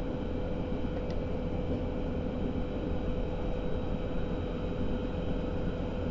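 Cabin sound of a Berlin S-Bahn class 481 electric train running at steady speed: a steady rumble of wheels and running gear with a constant hum held at one pitch.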